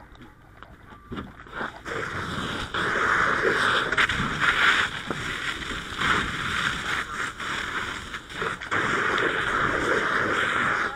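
Fire hose handline nozzle flowing water: a steady, loud rushing hiss of the stream that starts about two seconds in, with an uneven loudness.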